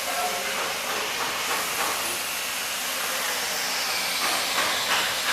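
A steady hiss of rushing air, with a few faint knocks near the end.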